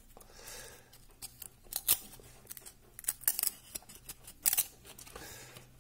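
1993-94 Topps Premier hockey trading cards being handled and pulled apart: soft rustles and clicks of card stock, with a few sharper snaps about two, three and four and a half seconds in.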